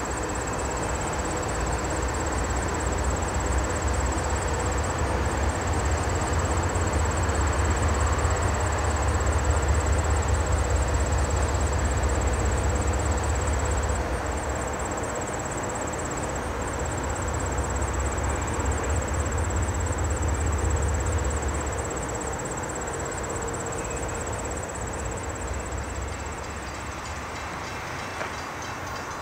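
Intermodal freight train's container cars rolling across a steel girder bridge: a steady, heavy low rumble of wheels on the rails with some clatter, fading away after about 22 seconds.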